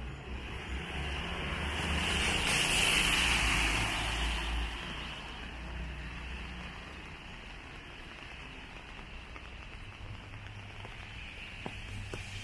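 Tyres hissing on a wet road as a car passes, swelling to its loudest about three seconds in and fading away, over the steady hiss of a rainy street.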